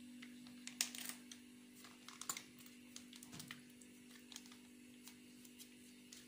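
Hands kneading and squishing grated onion with tomato paste in an aluminium pan: irregular soft clicks and squelches of wet onion and fingers against the metal, busiest in the first couple of seconds, over a steady low hum.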